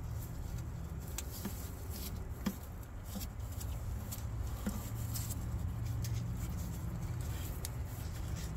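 Small scratches and clicks from gloved fingers working a new rubber rear main seal half around the crankshaft journal, pushing it into its groove. A steady low hum runs underneath.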